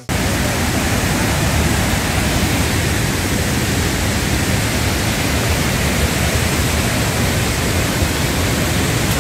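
Waterfalls and a fast river cascading over rocks: a loud, steady rush of water.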